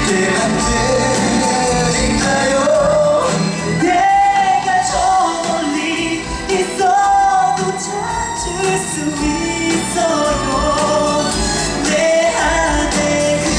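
Male pop vocal group singing live over band accompaniment, the lead melody passing from one singer to another.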